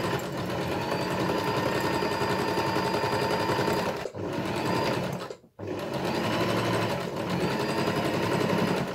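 Janome sewing machine running at a steady speed, stitching a buttonhole with its automatic buttonhole foot. It dips briefly about four seconds in, stops for a moment about five and a half seconds in, then runs again and stops near the end.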